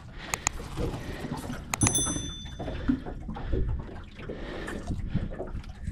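Handling knocks and rustles on a small fishing boat, with a sharp metallic clink about two seconds in that rings briefly and fades.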